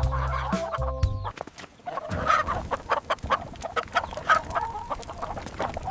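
Chickens clucking, a busy run of short clucks from several birds.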